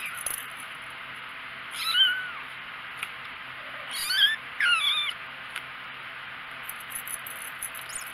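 Four-week-old kitten mewing: three short high-pitched mews, each bending up and down in pitch. One comes about two seconds in, and two come close together around four to five seconds in.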